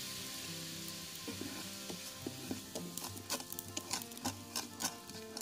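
Sugar and water bubbling in a nonstick pan with a fizzing hiss that fades, the sugar melting into syrup. From about two seconds in, a wooden spatula stirs, scraping and tapping against the pan several times.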